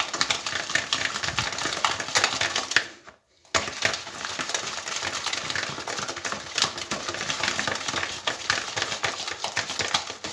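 Whisk beating cake batter of eggs, sugar and oil in a bowl: a rapid, continuous clicking against the bowl that breaks off briefly about three seconds in.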